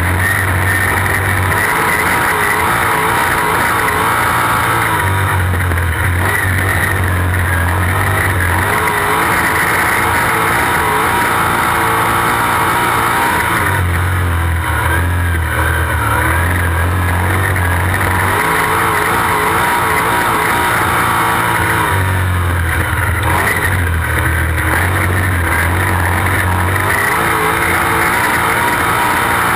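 Sprint car engine heard from an onboard camera at racing speed on a dirt oval. It rises and falls in a repeating cycle about every eight seconds as the car goes on and off the throttle through each lap.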